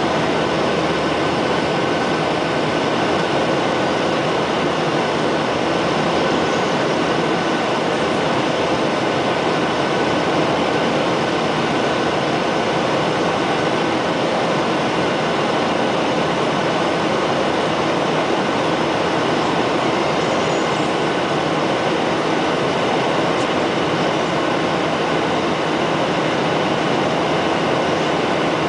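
Steady cabin noise of a Boeing 737-800 climbing after take-off: the even rush of its CFM56-7B turbofan engines and the airflow, heard from a window seat beside the engine, with a faint steady whine in it.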